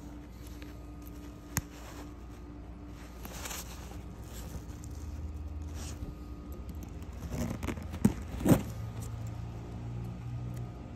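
A leather backpack being handled: fabric lining and leather rustling and scraping, with metal zipper pulls and hardware clinking, and two sharp knocks about eight seconds in. A steady low hum runs underneath.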